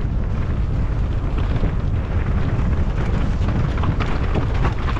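Downhill mountain bike ridden fast over a rough trail: steady wind rush on the microphone with tyre noise and a constant scatter of knocks and clicks from the bike rattling over the ground.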